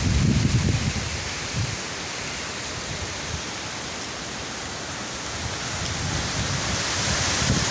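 Wind blowing outdoors and buffeting the microphone, with low rumbling gusts about the first second and again near the end and a steady hiss in between.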